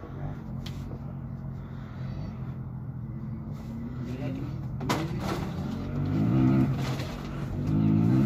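An engine running nearby with a steady hum, its pitch creeping up slowly, then two louder revs near the end; a sharp knock about halfway through.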